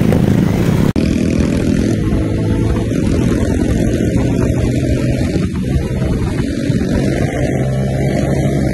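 Motorcycle engine running steadily as the bike is ridden along, heard from on board. A brief dropout about a second in, where the sound cuts to a new take.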